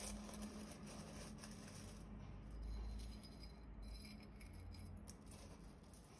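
Dry spaghetti strands clattering and rattling against the bottom of a stainless steel pot as they are laid in and spread out by hand, over a steady low hum.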